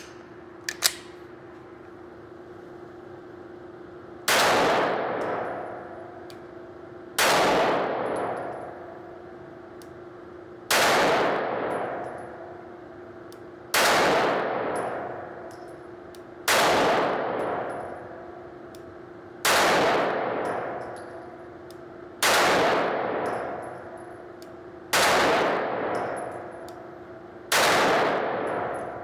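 IWI Masada 9mm pistol firing single shots of 115-grain full metal jacket ammunition at a slow pace: nine shots about three seconds apart, starting about four seconds in. Each shot is followed by a long echo off the concrete-block walls of the indoor range.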